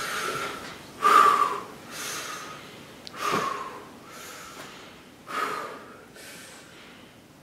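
A man gasping and breathing heavily in distress, one loud breath about every second, the loudest about a second in, fading toward the end.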